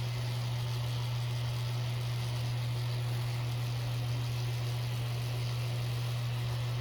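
Small electric desk fan running steadily: a constant low motor hum with a soft rush of air over it.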